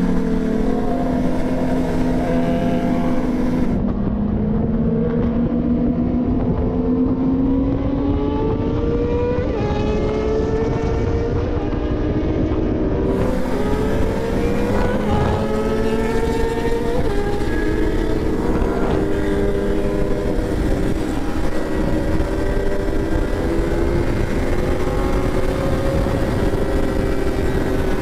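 Sport motorcycle engine running at highway speed, its revs climbing and dropping back several times at gear changes, over steady road and wind noise.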